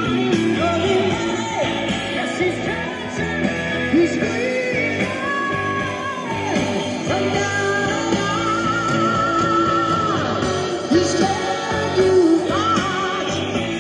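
Rock and roll song with singing and guitar, played on a Panasonic RX-5150 cassette boombox.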